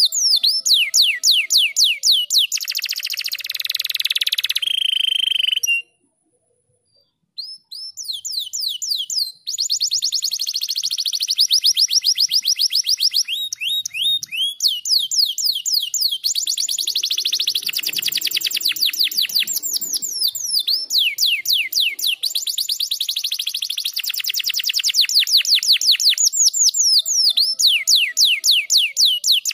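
Domestic canary singing a long song of fast trills, each a rapid run of repeated swooping notes at about ten a second, shifting from one trill to the next, with a held whistle near the start. The song breaks off briefly about six seconds in, then resumes.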